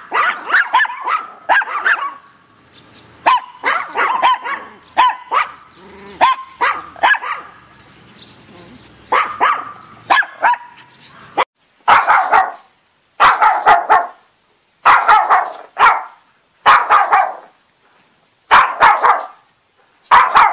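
Chihuahuas barking: a long-haired chihuahua yaps in quick runs of high barks, then after a sudden cut about eleven seconds in comes louder barking in short bunches, about every one and a half to two seconds.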